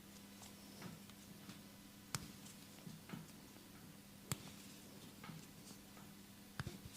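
Hands massaging a person's body: soft, faint rubbing with three sharp clicks about two seconds apart, over a steady low hum.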